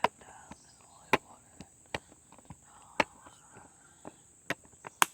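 Sharp clicks and knocks at irregular spacing, about half a dozen loud ones, over a steady high chirring of crickets.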